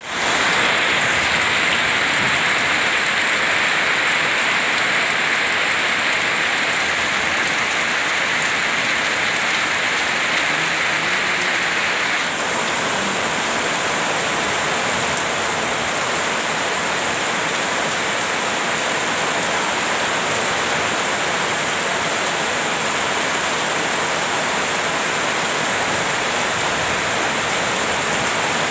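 Heavy rain falling steadily, a constant hiss, with water streaming off the edge of a roof; its tone changes slightly about twelve seconds in.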